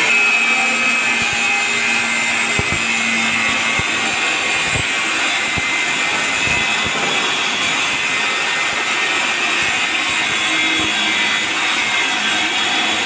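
Handheld electric angle grinder with an abrasive cut-off disc cutting through a flat metal bar: a steady, loud high-pitched whine and grinding hiss as the disc bites into the metal.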